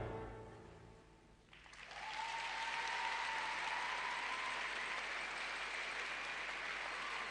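Final notes of the program music fading out, then an arena crowd breaks into applause about a second and a half in, with a steady high tone held over the clapping for a few seconds.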